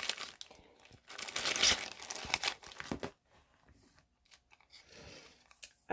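Crinkly packaging being handled and torn open as small kit accessories are unwrapped, in several rustling bursts over about three seconds, then only faint handling noise.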